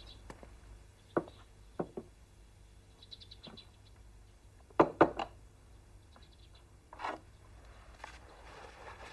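Scattered light wooden knocks and porcelain clinks as a wooden tray and a lidded porcelain tea cup (gaiwan) with its saucer are set down on a wooden table. The loudest is a close pair of clacks about five seconds in.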